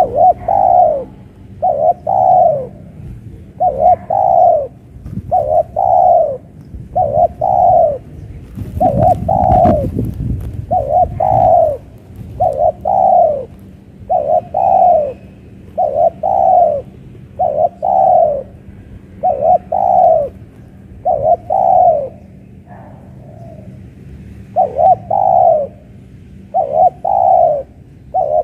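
Spotted dove cooing: a long run of short coos, roughly one to two a second, each dropping slightly in pitch at its end. A brief thump about nine seconds in.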